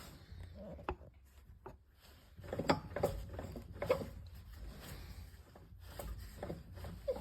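Irregular clunks and knocks from a BMW X3's prop shaft being worked back and forth by hand, the sign of play in a worn prop shaft joint; the loudest knocks come in a cluster a few seconds in.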